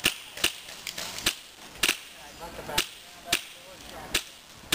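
Airsoft pistol firing single shots: about eight sharp pops at uneven gaps of roughly half a second to a second.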